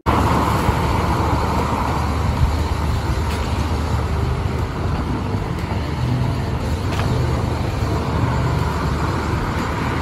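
Steady rumble of road traffic.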